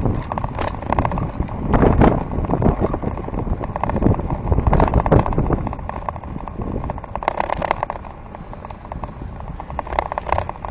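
Bicycle riding on wet tarmac, heard from a handlebar-mounted camera: a low wind rumble on the microphone, the tyres on the road, and a constant rapid clicking and rattling from the bike.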